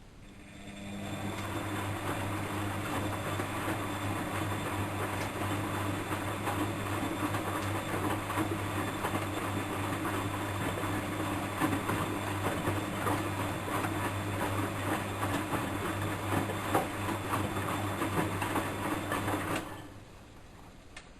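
Bosch WFM3010 washing machine running: a steady hum with a busy rattle that builds up over about a second and stops abruptly near the end.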